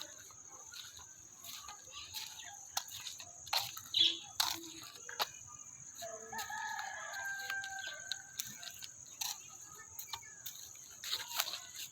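A rooster crows once, a held call of about two seconds starting about six seconds in. Short sharp bird chirps come and go, over a steady high insect drone.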